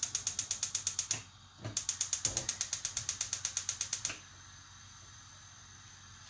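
Gas hob's spark igniter clicking rapidly, about eight or nine clicks a second, in two runs with a short break about a second in. It stops about four seconds in as the burner lights, leaving a faint steady hiss.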